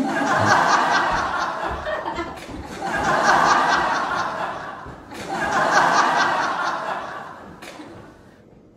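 Laughter in three waves of about two seconds each, each swelling and then fading, dying away near the end.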